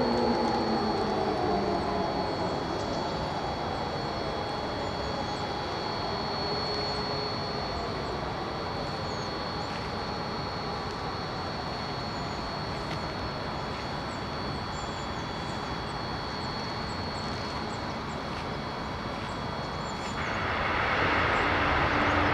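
Sirens winding down, their falling tones fading out over the first two seconds. Then a steady outdoor rumble with two faint, high, steady whistles. Near the end a hiss swells and a low steady tone starts as the siren begins sounding again.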